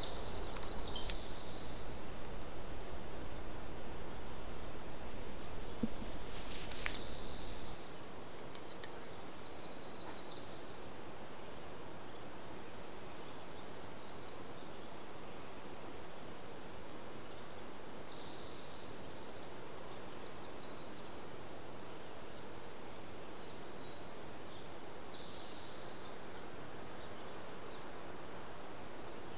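Birds chirping, with short high trills recurring every few seconds over a steady background hiss. A low rumble underneath stops about eight seconds in.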